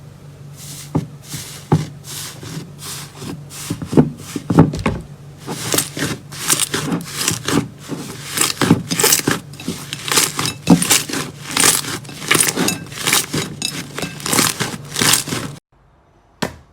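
Slime being squished and pressed by hand: a dense, irregular run of sticky crackles and pops over a steady low hum. It all stops suddenly near the end, followed by one short click.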